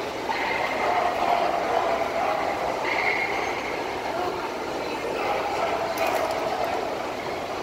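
Indistinct murmur of voices over steady background noise, swelling and fading a little without any clear words.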